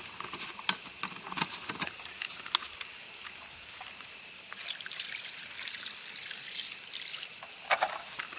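A chorus of night insects trilling steadily and high-pitched, one layer pulsing on and off, with scattered sharp clicks and light knocks throughout.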